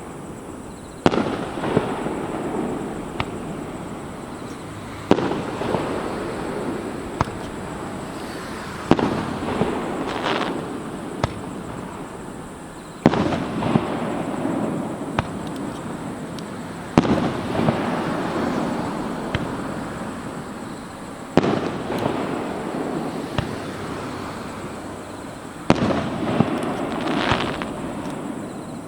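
Aerial firework shells bursting about every four seconds, each sharp bang followed by a long fading rumble with scattered crackles.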